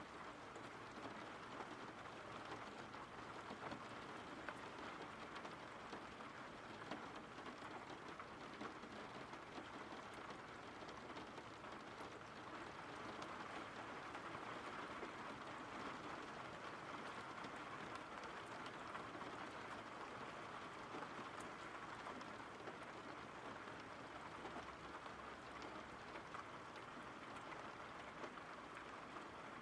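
Steady rain falling, faint and even, with occasional light ticks of single drops.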